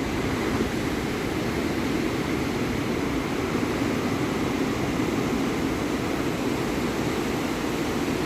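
Steady rushing noise of ocean surf, even throughout, with no single wave breaking out above it.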